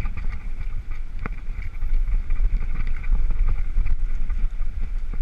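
Wind rumbling on the microphone of a camera carried on a mountain bike being ridden over grass, mixed with the bike's rattles and a sharp click about a second in.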